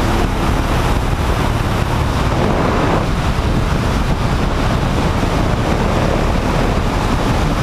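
Steady wind rush over the microphone of a motorcycle riding at road speed, with the bike's running and road noise buried beneath it.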